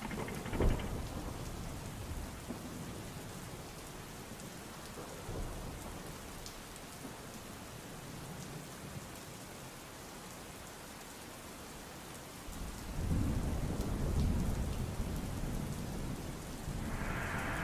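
Steady heavy rain with thunder: a sharp clap near the start and a long low rumble about two-thirds of the way through. Just before the end, the steady hum of a vacuum cleaner comes back in over the rain.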